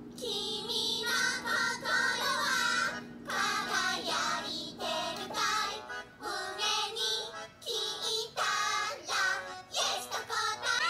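High-pitched, childlike voices singing a song over backing music, in short phrases with brief breaks between them.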